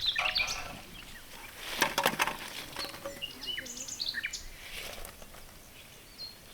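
Small birds chirping, with short high calls coming thickest a few seconds in. A quick cluster of sharp knocks or clatter sounds near the start and again about two seconds in.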